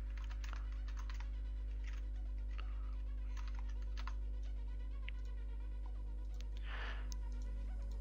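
Computer keyboard typing, irregular clusters of keystrokes, over a steady low electrical hum.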